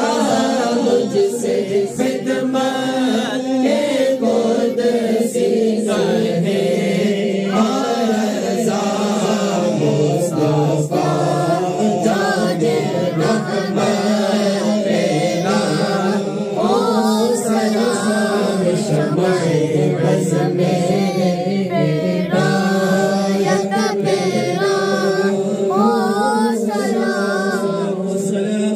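A group of men singing a devotional chant together without instruments, led by one voice on a microphone.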